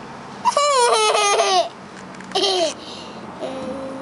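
A young girl's high-pitched laughter, a burst of quick falling pulses lasting about a second, then one short falling squeal about two seconds in.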